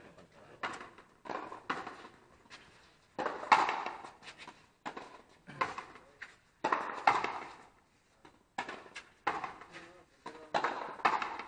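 Frontenis rally: the hard rubber ball cracks off the rackets and the concrete front wall in a string of sharp hits, several of them ringing on with echo, with voices under them.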